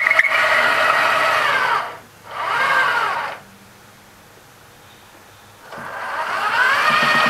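Turret traverse motor and gearing of a 1/6-scale King Tiger model whining as the turret turns on its deck ball bearings, with a scraping noise the builder puts down to scratched paint. The whine falls in pitch and stops about two seconds in, runs again briefly, stops for about two seconds, then starts up again and rises in pitch near the end.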